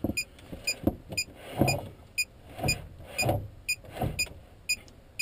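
Short electronic beeps at one steady pitch, repeating evenly about twice a second, from a beeper in the glider's cockpit, with irregular low rumbles between them.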